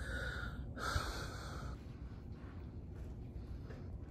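Two short breaths close to the microphone in the first second and a half, then faint low room noise.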